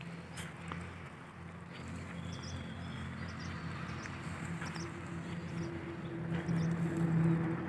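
A steady engine drone at a distance, growing louder near the end, with a few faint bird chirps over an outdoor background.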